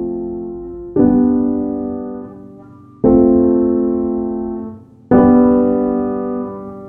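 Background music of slow piano chords: a new chord is struck about every two seconds, three times, each left to ring and fade before the next.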